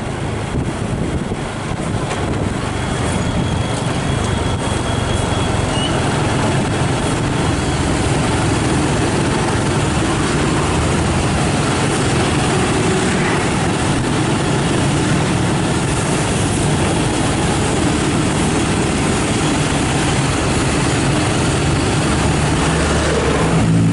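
Intercity bus on the road: steady engine and road noise with a low hum, growing louder over the first few seconds. Right at the end a multi-tone horn starts to sound.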